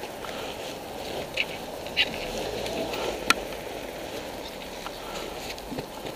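Rustling and handling noise close to the microphone, with a few sharp clicks, the strongest about three seconds in, over a steady street background.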